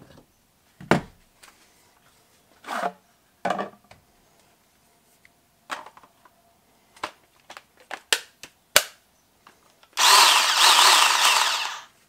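A string of clicks and knocks as a Ryobi cordless chainsaw is handled, then, about ten seconds in, the chainsaw's electric motor and chain run for about two seconds with a wavering whine before cutting off.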